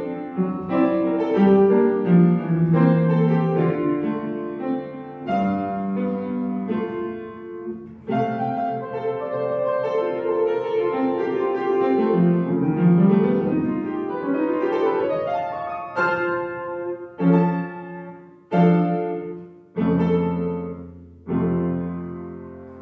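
Upright piano played solo: a lively passage of quick notes with a rising run about twelve seconds in, then five separate chords struck a little over a second apart, each left to ring and fade.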